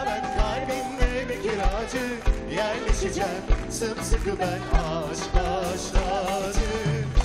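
Live studio band playing an upbeat song with a steady drum beat and a wavering melody line over it.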